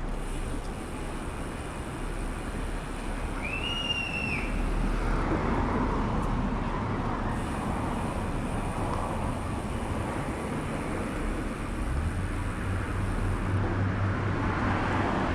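Wind rushing over the microphone and road noise while riding a bicycle along a town street, with traffic around. There is a brief high squeak about four seconds in, and a low hum comes up in the last few seconds.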